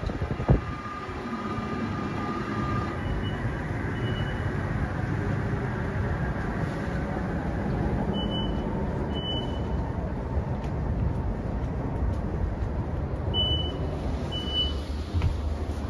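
Door warning beeps of an SBB RE450 double-deck S-Bahn train, short high beeps in pairs about a second apart, sounding several times over the steady rumble of the standing train. A single sharp knock comes just after the start.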